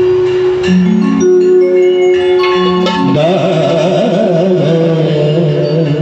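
Indian music on a sanai, the Marathi shehnai-type double-reed pipe: held notes over a steady drone, then from about halfway a melody with quick wavering ornaments.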